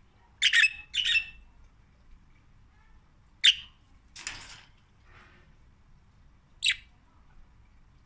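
Pet budgerigar giving short, sharp chirping squawks: two in quick succession about half a second in, another about three and a half seconds in, and one more near the end. A harsher, noisier burst comes just after the third call.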